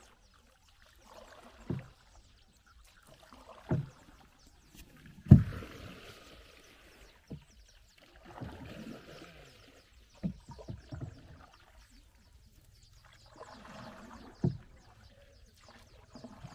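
Wooden canoe being paddled: a dull knock of the paddle against the hull with each stroke, followed by water swishing off the blade. The strokes come roughly every two seconds with a few longer gaps, and the loudest knock is about five seconds in.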